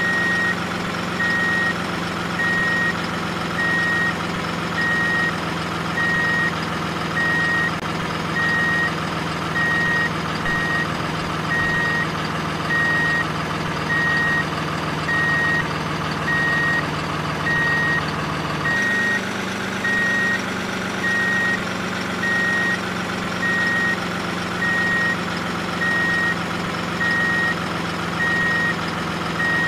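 Truck engine running steadily with a reversing alarm beeping at an even pace, about once a second. The engine note shifts slightly about two-thirds of the way through.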